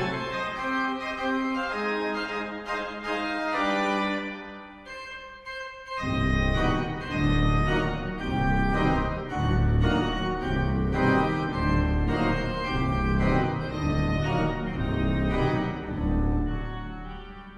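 Pipe organ playing: sustained chords at first, then from about six seconds in, heavy accented pedal bass notes in a regular repeated rhythm under the chords, fading toward the end.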